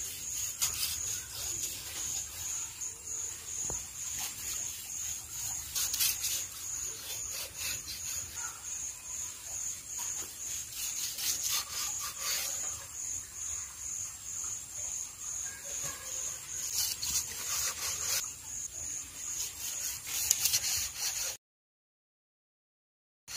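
A large kitchen knife sawing through the body and backbone of a king fish (anjal), cutting it into steaks on a wooden stump, with scraping strokes and a few sharp knocks of the blade on the wood. A high chirping repeats about three times a second in the background. The sound cuts off to silence near the end.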